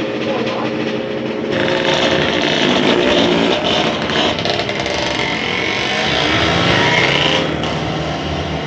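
Motorcycle engine running close by. A louder rushing noise joins it about one and a half seconds in and eases off near the end.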